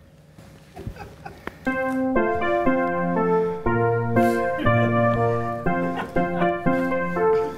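A keyboard with an electric-piano sound starts a song's intro about a second and a half in, playing held chords over a stepping bass line. A few faint clicks come just before it starts.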